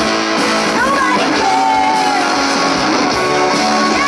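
Live rock band playing, with electric guitar and a woman singing over it.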